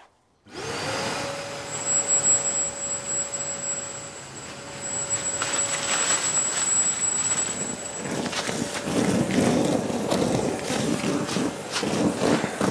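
Kärcher WD 3.200 wet-and-dry vacuum starting up and running in blower mode: a steady motor whine with rushing air. From about two-thirds of the way in, louder irregular rattling and rushing joins it, as debris is blown off a surface.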